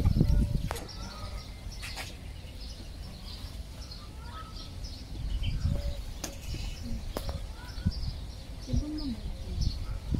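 Small birds chirping: many short, high chirps scattered throughout, with a low rumble near the start and again about five seconds in.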